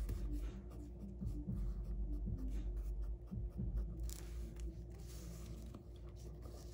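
Short, quick strokes of a drawing pen or pencil on paper, many in a row, as fine shading lines are drawn. A faint low hum runs underneath.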